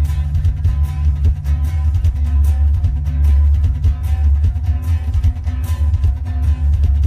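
Loud live experimental noise music: a heavy, steady low drone with held tones above it and sharp hissing hits about once a second.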